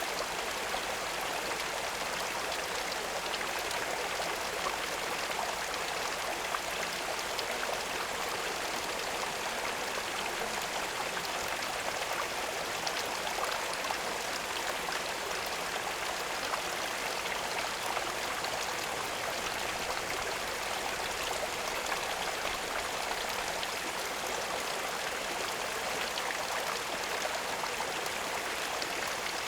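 Running water trickling and splashing steadily, with a fine patter of droplets throughout.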